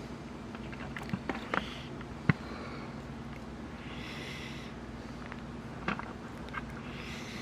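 Pioneer CT-W840R cassette deck's right-hand tape transport running with a steady low hum, broken by irregular clicks and a brief hissing scrape about four seconds in. These are struggling noises from the mechanism while it plays a good tape.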